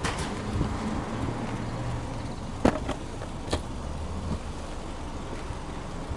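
Subaru Impreza hatchback 2.0i-S Limited's 2.0-litre boxer four idling steadily, heard at the rear near the tailpipe. A few sharp clicks come between about two and a half and three and a half seconds in.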